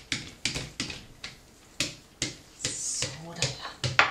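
Small handheld dough roller working the edge of yeast dough against the rim of a stoneware baking sheet, with an irregular series of short clicks and knocks, two or three a second.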